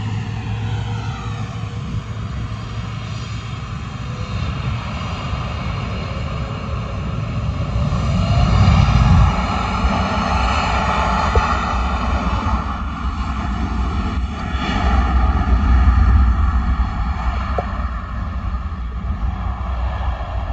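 Widebody twin-jet airliner's engines running at high power during the takeoff roll, with a falling whine in the first two seconds. The sound swells loudest about eight seconds in and again about sixteen seconds in.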